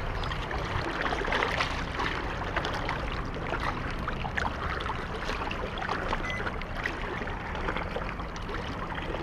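Steady wash of water lapping against shoreline rocks, with scattered small clicks and ticks from handling the lip grip and scale.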